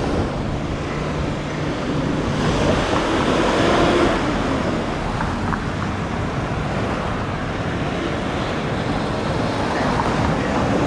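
Road traffic going by, one vehicle passing loudest about two to four seconds in, over a steady low rumble of wind on the microphone.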